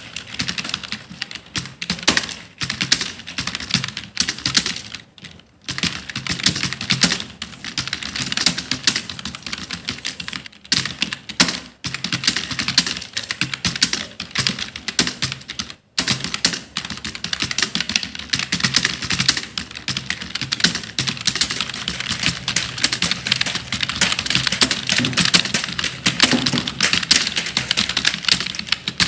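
Fast, continuous typing on a computer keyboard: a dense run of key clicks, broken by brief pauses about five, eleven and sixteen seconds in.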